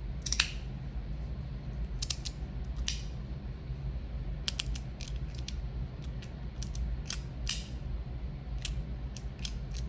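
YC-EDC Breakthrough four-click magnetic fidget slider being slid back and forth, its plates snapping into place with sharp, irregularly spaced clicks; the plates are rattly.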